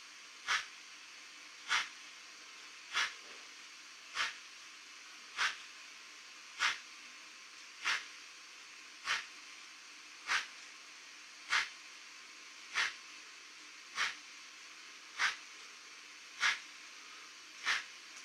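Sound decoder of a Fleischmann N-scale BR 94 steam tank locomotive model playing short steam puffs, evenly spaced about one every 1.2 seconds, over a steady hiss from its small loudspeaker.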